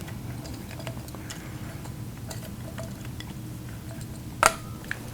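Light metallic clicks and ticks of an airbrush compressor's pressure regulator and moisture trap being handled and unscrewed from the compressor's outlet, with one sharp ringing metal clink about four and a half seconds in. A low steady hum sits underneath.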